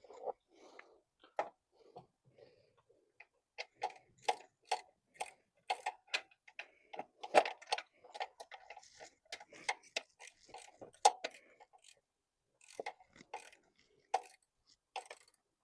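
Hand ratchet wrench clicking in short, irregular strokes on an alternator mounting bolt, with sharp metallic clicks about one or two a second and quick runs of clicks through the middle.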